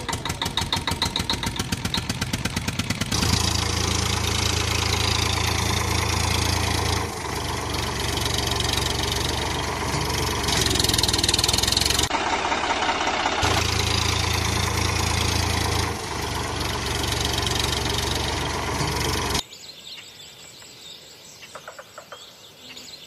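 Tractor engine sound added over the footage: a fast even chugging for the first three seconds, then steady running in stretches that change abruptly every few seconds, dropping to a much quieter patch near the end.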